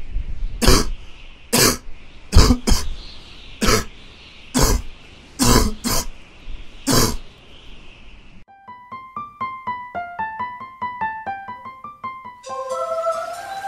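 A person coughing, about nine harsh coughs over roughly seven seconds. It is followed by a short run of quick piano notes.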